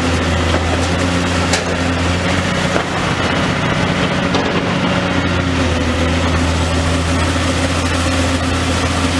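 Demolition excavator's engine running steadily, with a few faint clicks over it.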